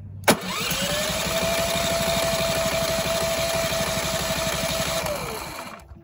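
Cummins Onan P4500i generator cranking on its electric starter with the spark plug out. A click as it engages, then a quickly rising whine that holds steady over a fast even chugging, winding down near the end. The engine does not fire because there is no spark, a fault the owner traces to a bad indicator-light part.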